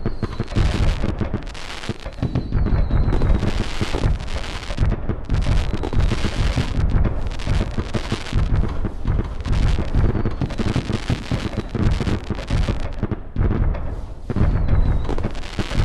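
Fireworks going off in a dense, continuous barrage of booming bursts and crackle, with now and then a faint whistle.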